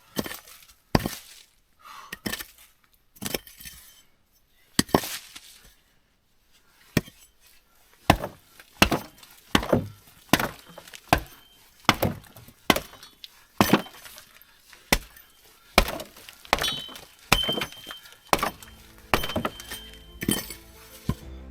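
A series of sharp knocks or strikes, irregular, roughly one a second, some with a clinking ring. A faint steady high tone sounds near the end.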